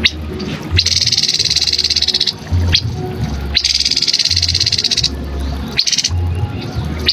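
Grey-headed babbler singing: two long, fast trills of about a second and a half each, with a short rising note after each.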